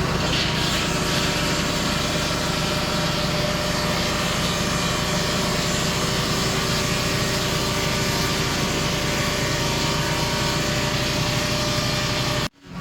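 Portable sawmill's engine running steadily at high speed, cut off abruptly by a brief dropout near the end.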